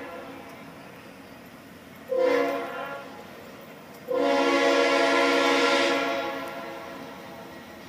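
Locomotive air horn sounding a chord of several notes: the fading end of a blast at the start, a short blast about two seconds in, then a longer blast about four seconds in that holds for about two seconds and dies away.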